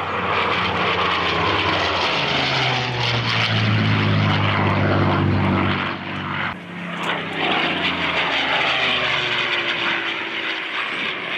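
Propeller-driven WWII fighter with a piston V-12 engine making low passes: the engine note swells and drops in pitch as it goes by, twice, with an abrupt break between the passes.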